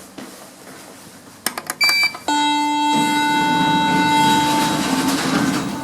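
Hospital lift call button pressed with a few clicks and a short beep. A steady electronic signal tone from the lift then sounds and holds for several seconds, over a low rumble.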